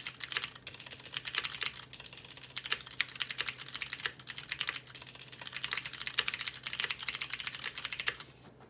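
Fast typing on a Cherry MX Board 3.0S mechanical keyboard with clicky Cherry MX Blue switches: a dense run of sharp key clicks that stops near the end.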